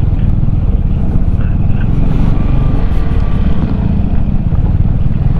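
Yamaha XMAX single-cylinder scooter running while it rides over a broken, rocky dirt road, with a dense, uneven low rumble throughout.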